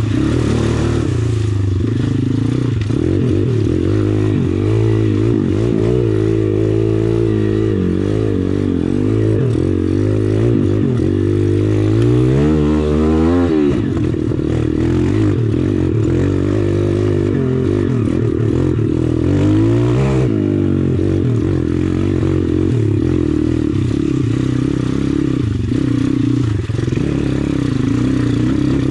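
Single-cylinder four-stroke engine of a 140cc YX pit bike being ridden, its revs rising and falling with the throttle. The revs climb quickly about twelve seconds in and again around twenty seconds.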